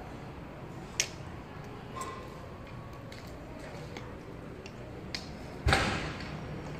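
Joss paper burning in a perforated metal burner barrel, with a few sharp isolated crackles over steady background noise. About five and a half seconds in, a louder burst of noise fades away within half a second.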